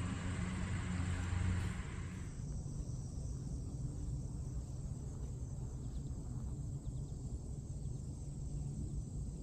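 Outdoor ambience: a low steady rumble with faint insect chirring. A broader rushing noise in the first two seconds cuts off suddenly, leaving the quieter rumble.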